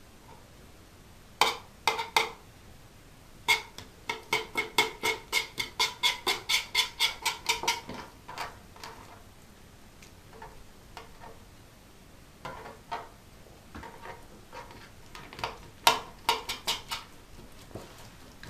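Kitchen knife working pike fillet off the bones on a wooden cutting board: a quick run of sharp knife clicks and scrapes, about four a second, a few seconds in, with shorter groups of strokes later.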